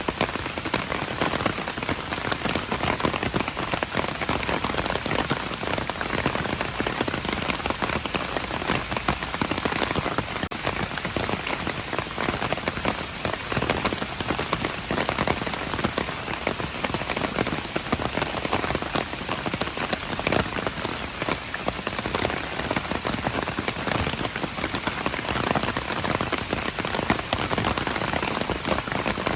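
Steady rain falling on surfaces: a dense, even patter of many drops that keeps up throughout.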